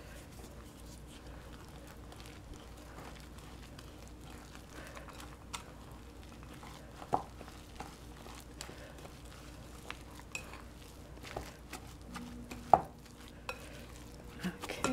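Metal fork stirring flour into a wet yeast-and-milk mixture in a glass mixing bowl: soft scraping and rustling with small ticks as the fork touches the glass, and two sharper clinks, about seven and thirteen seconds in.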